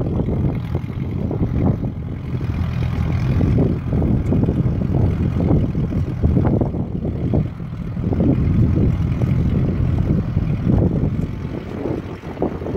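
Small vintage Ford tractor engine running steadily under load as it pulls a mounted two-bottom plow through the soil.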